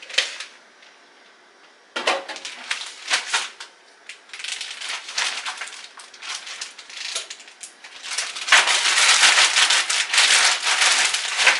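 A plastic bag of cauliflower florets crinkling as it is handled and shaken to coat them in sauce. There is a sharp tap at the start, then a short lull, then on-and-off crinkling that becomes a steady, dense rustle from about two-thirds of the way through.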